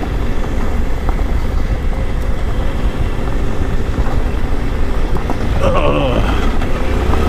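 Suzuki V-Strom 800 DE's parallel-twin engine running as the bike is ridden, mixed with a steady heavy wind rumble on the helmet-mounted camera's microphone.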